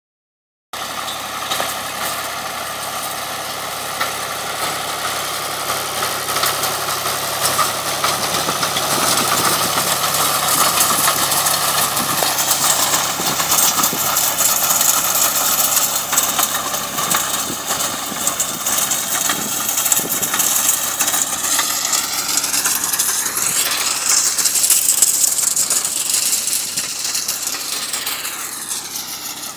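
Ford 4000 tractor's diesel engine running steadily under load as it pulls a hay rake through cut hay. It grows louder as the tractor comes close, and its pitch bends near the end as it passes by.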